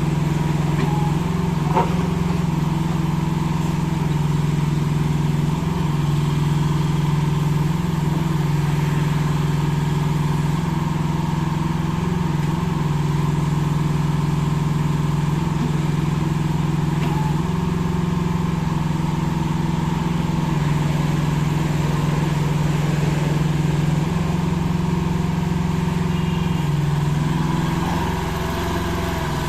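IHI IS-008 mini excavator's small diesel engine running steadily as the machine is worked, dropping slightly in level near the end.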